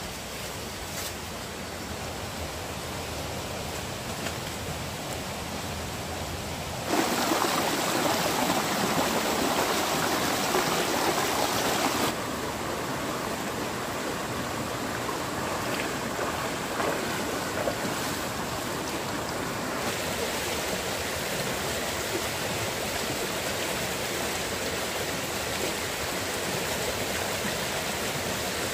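Shallow rocky stream rushing over stones, a steady wash of water. A louder, closer rush cuts in suddenly about a quarter of the way in and drops back just as suddenly some five seconds later.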